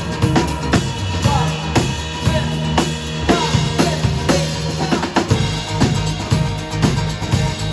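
Rock band playing live without vocals: a drum kit beat, kick and snare about twice a second, over bass notes that shift lower about five seconds in.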